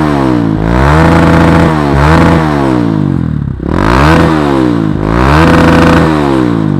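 Kawasaki KLX150 BF single-cylinder engine breathing through an aftermarket GP7 Predator exhaust, revved lightly in neutral: a run of throttle blips, the pitch rising and falling back each time.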